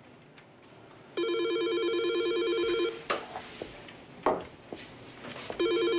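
Desk telephone ringing with a trilling electronic ring: one ring of nearly two seconds, then a second ring starting near the end. A few soft knocks come between the rings.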